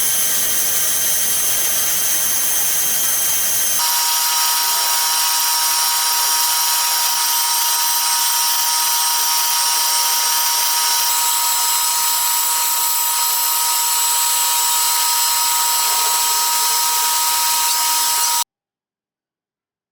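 A power tool running steadily with a high whine of several held tones. Its tone changes suddenly about four seconds in, shifts again around eleven seconds, and the sound cuts off abruptly near the end.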